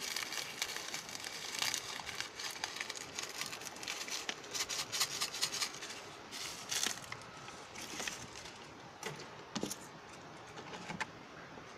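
Foil instant-coffee sachet crinkling as it is squeezed and shaken out into a steel bowl of water. The crackling is irregular and thins to a few scattered ticks over the second half.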